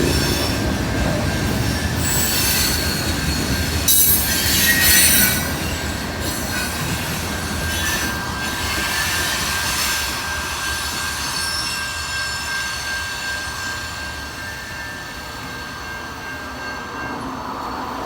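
CN freight train's cars rolling past, wheels squealing with a steady high whine and louder screeches about two and four seconds in. The sound slowly fades as the train passes.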